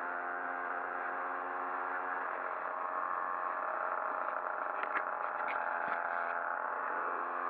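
Moped engine running steadily at cruising speed, heard from the rider's own bike, with a few short clicks about five seconds in.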